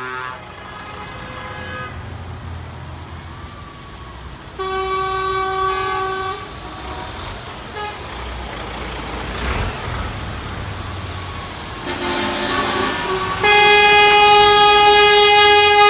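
Lorries rumbling slowly past in a convoy, with truck horns sounding: a blast of about two seconds some four and a half seconds in, a fainter one near twelve seconds, then a loud long horn starting about thirteen and a half seconds in.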